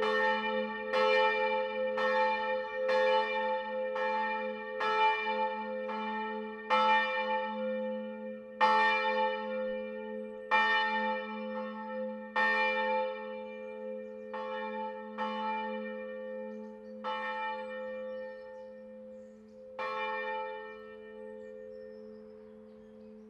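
Church bells ringing out at the end of a peal: strikes about once a second at first come further apart and fainter as the bells swing to rest. The last strike comes about twenty seconds in, and the bells' low hum dies away after it.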